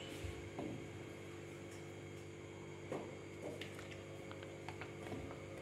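Steady low electrical hum with a few faint soft taps and scrapes as ground cashew-almond paste is scraped by hand from one steel mixer jar into another holding milk.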